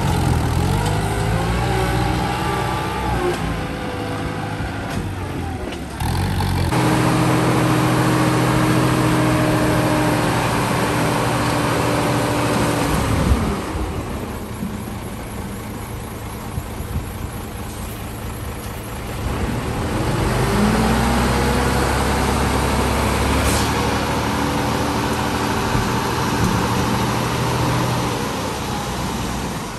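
A farm tractor's engine revving up and down, then a dump truck's engine held at steady high revs to raise its tipper bed. The truck's engine drops off for several seconds about halfway through, then picks up again and holds steady as the load slides out.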